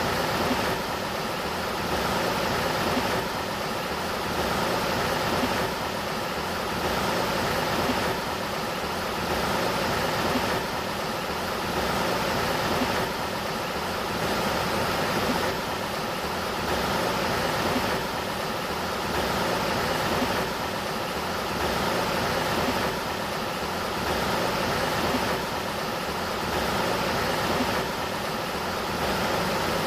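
Sacramento River water flowing with a steady rushing sound that swells and eases about every two and a half seconds.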